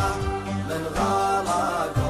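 Middle Eastern wedding music: chant-like singing over a steady drum beat.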